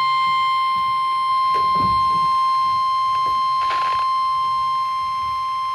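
Weather radio warning alarm tone, the 1050 Hz tone of Weatheradio Canada: one loud, steady electronic tone. It announces that a severe weather warning bulletin follows. Faint background knocks and a brief hiss lie under it.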